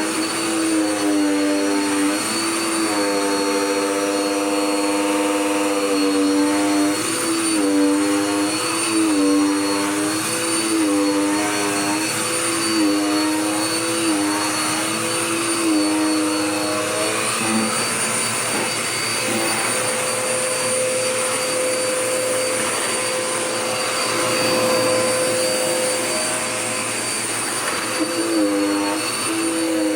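Dirt Devil Power Max Pet upright vacuum cleaner running on a floor, its motor hum dipping and rising in pitch every second or two as it is worked back and forth. For about ten seconds past the middle the hum settles to a steadier, higher tone before the dipping returns near the end.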